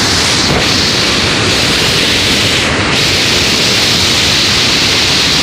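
Rain-swollen river rushing hard over a waterfall and rapids: a loud, steady, unbroken water noise.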